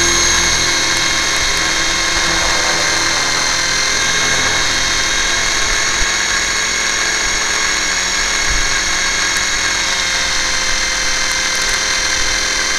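Electric motors and propellers of a small radio-controlled aircraft, heard through its onboard camera as it lifts off and climbs: a loud, steady whine made of several high tones over a rush of noise.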